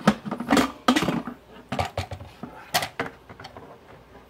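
Instant Pot lid being twisted open and lifted off the stainless steel inner pot, now that the pressure is fully released: a handful of sharp clicks and clanks over the first three seconds, with no hiss of steam.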